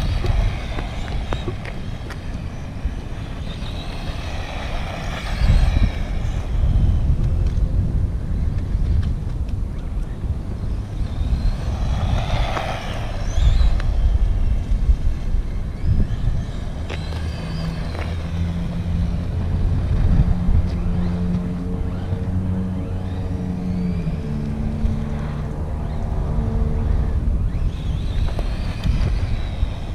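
Small 1/20-scale electric RC car (Wltoys 20409) driving around, its motor whining up and down in pitch several times as it speeds up and passes, over a constant low rumble.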